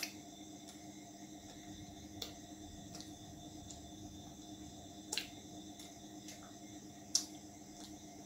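Eating roti and chicken curry by hand from a steel plate and bowl: soft wet squishing of food between the fingers, with four short sharp clicks, the loudest about seven seconds in, over a steady low hum.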